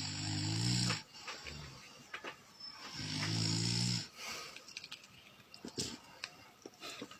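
Snoring in sleep: two long, buzzing snores about three seconds apart, each lasting about a second, followed by faint breathing and a few small clicks.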